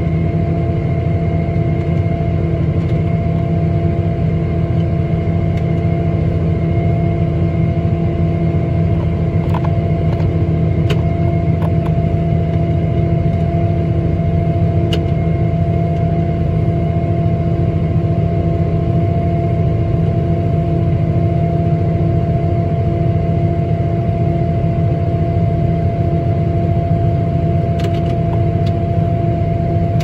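Diesel engine and unloading auger of a harvest machine running steadily as wheat pours into a grain trailer, a constant low drone with a few held tones and a handful of faint ticks.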